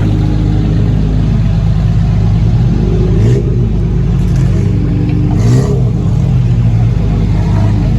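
Off-road 4x4 vehicle's engine running under load, revved up briefly twice, about three and five and a half seconds in, each time with a short burst of hiss.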